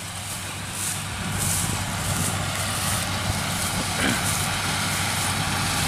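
Rice combine harvester's diesel engine running steadily as it cuts, a continuous droning hum.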